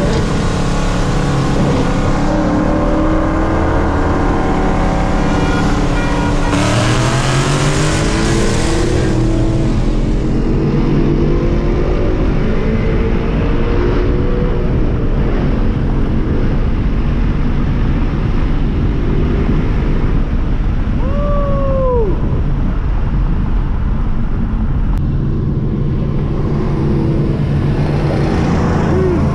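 Straight-piped Ford Mustang GT 5.0 V8 exhaust heard from inside the cabin while cruising. About six and a half seconds in, the revs climb as it accelerates for a few seconds, then it settles back to a steady drone.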